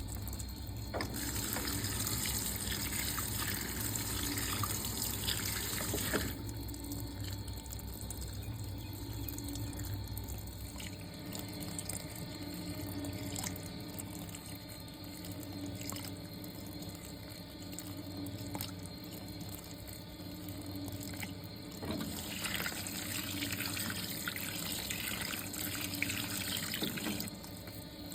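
Water running into the tub of a Fisher & Paykel Pride MW511 top-loading washing machine as it fills, with louder rushing spells near the start and again near the end.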